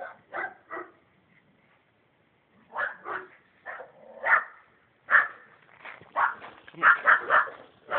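Small bulldog barking repeatedly: a few barks, a pause of about two seconds, then barking again, coming faster and more steadily toward the end.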